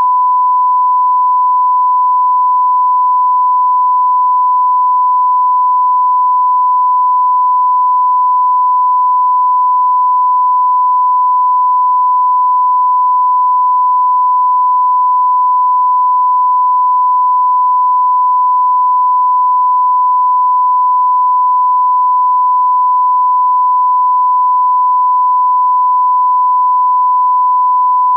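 1 kHz sine-wave test tone, one steady unbroken pitch at constant level: a line-up reference tone for a test-card signal.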